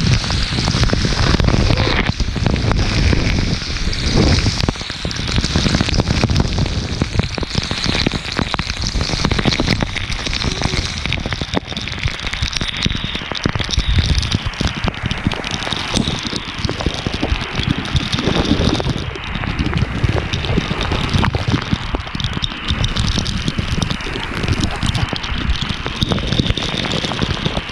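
Waterfall water pouring and splashing close to the microphone: a loud, steady rush with a heavy low rumble.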